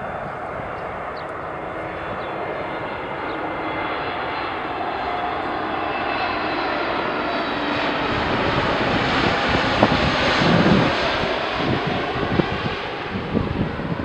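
British Airways Airbus A321neo on final approach, its CFM LEAP-1A turbofans making a broad jet roar that grows steadily louder, peaks about ten seconds in as the aircraft passes, then begins to fade. Gusts of wind buffet the microphone in the second half.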